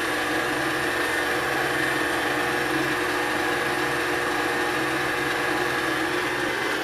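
Electric stand mixer running at a steady speed, its motor giving an even whine as the beater mixes flour, salt and butter in a stainless steel bowl.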